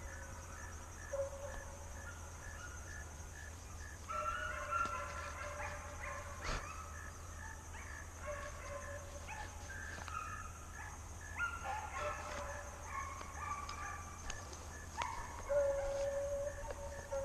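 Deer hounds baying in long, drawn-out howls that come and go, several notes overlapping at times. An insect trill runs steadily underneath.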